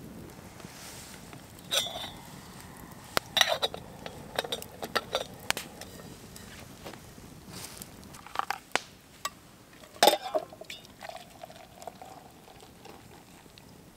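Metal camp kettle and cookware clinking and clanking a dozen or so times as the kettle is handled on its trivet over the fire, then hot water poured from the kettle into a metal camping mug near the end.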